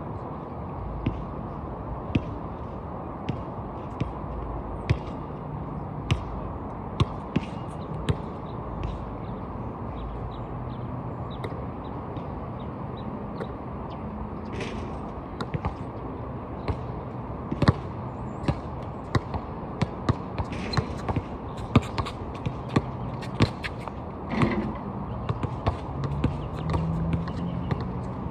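Basketball bouncing on an outdoor court: sharp knocks at irregular spacing, about one a second at first and coming thicker in the second half, over a steady low background noise.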